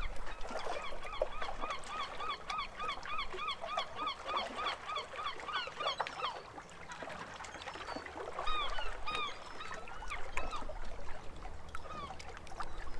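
A bird calling in a fast run of repeated arched notes, about three or four a second, then a few more calls after a short pause.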